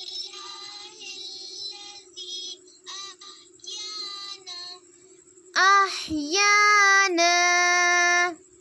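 A young girl chanting an Arabic supplication in a drawn-out, sing-song voice, with loud long held notes near the end. A steady low hum runs underneath.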